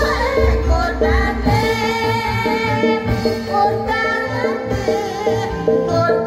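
East Javanese gamelan ensemble playing, with a voice singing over it and a drum keeping an even beat.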